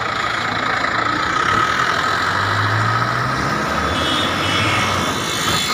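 Steady vehicle engine and road noise, with a truck passing close alongside about halfway through, its low engine hum swelling as it goes by.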